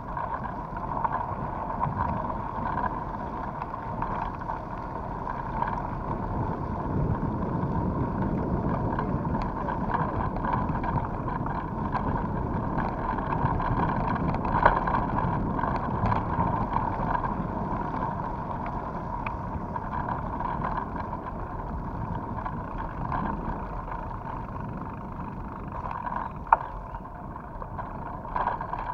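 Mountain bike rolling along a wet gravel and dirt road: steady tyre noise on the gravel with small rattles and knocks, two sharper ones about halfway and near the end.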